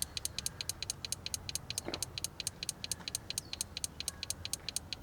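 Rapid, even mechanical clicking, about seven or eight sharp clicks a second.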